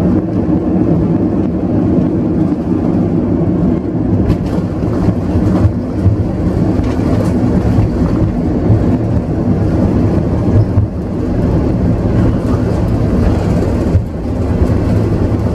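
Airbus A330 cabin noise while the airliner taxis after landing: a steady low rumble of the engines and wheels with a constant low hum.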